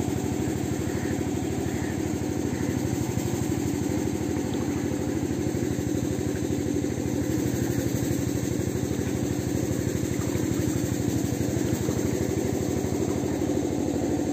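An engine running at a steady speed: an even, unchanging drone.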